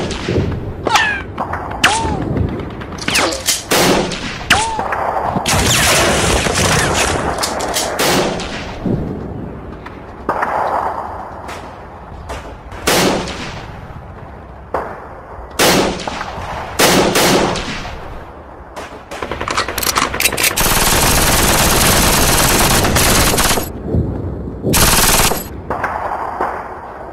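Gunfire sound effects in a fight scene: scattered single shots and quick bursts, with a solid stretch of about three seconds of continuous fire around three-quarters of the way through.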